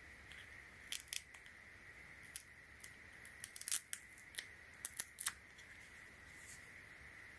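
Small items being handled: about a dozen sharp, scattered plastic clicks and ticks from the battery packaging and cables, with a faint steady high-pitched whine in the background.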